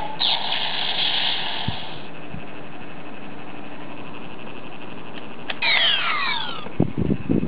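DX Kamen Rider W toy belt playing its finisher sound effects through its small speaker: a hissy burst at the start, then several falling electronic sweeps about five and a half seconds in. Sharp plastic clicks near the end as the belt and its memory are handled for the next finisher.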